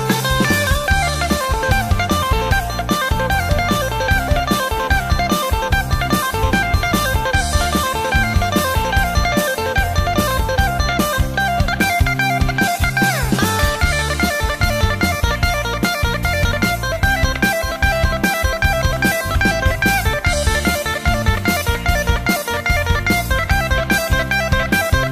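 Background music: electric guitar over bass and drums with a steady beat, in a blues-rock style.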